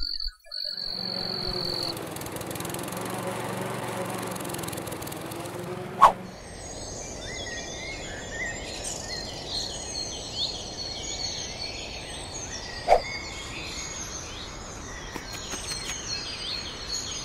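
A small petrol lawn mower engine running steadily for about five seconds, cut off by a loud sharp crack. Then birds chirping and twittering, with a second, quieter sharp crack about seven seconds later.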